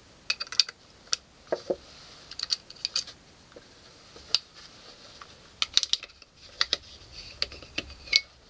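Metallic clicks and clacks of a Colt 1903 Pocket Hammer pistol being handled and taken apart by hand, the slide and small steel parts clicking. The clicks come irregularly, some singly and some in quick runs.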